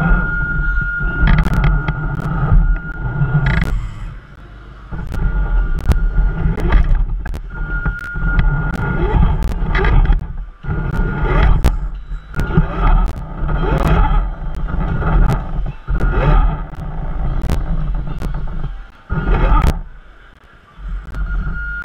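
Radio-controlled crawler driving in stop-start bursts, its electric motor whining on and off and wavering in pitch, with heavy rumble and sharp clicks and knocks as it moves.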